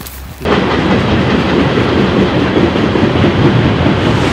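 Loud, steady rumble and rattle of a moving vehicle, heard from on board, starting suddenly about half a second in.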